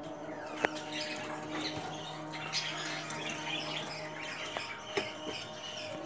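A flock of budgerigars chirping and chattering, with a steady low hum under them and a sharp click about half a second in.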